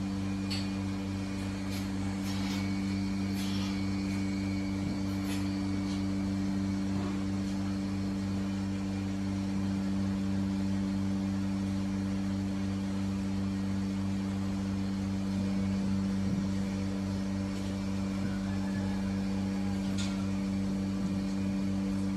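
Steady electrical hum of barn machinery, with a few faint clicks and knocks in the first few seconds.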